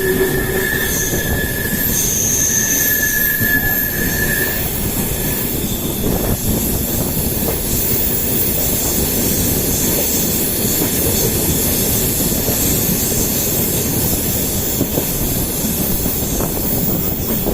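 Passenger train running at speed, heard from on board: the wheels squeal on a sharp curve for the first few seconds, then fade into a steady rumble of wheels on the track.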